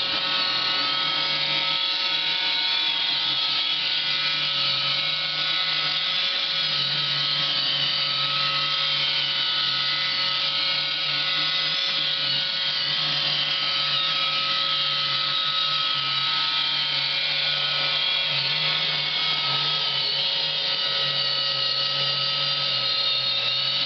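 iRobot Roomba 550 robot vacuum running steadily, a whirring motor whine over a low hum, as it works its way back to its charging dock.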